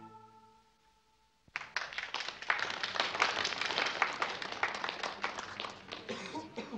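The last notes of music fade out, then about a second and a half in a small group of people starts clapping, applause that thins out near the end.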